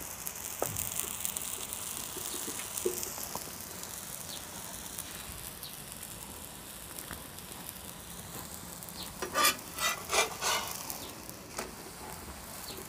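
A puda pancake sizzling in oil on a black iron pan over wood embers, a steady hiss. About nine to eleven seconds in come a few sharp scrapes of a metal spatula against the pan, the loudest sounds here.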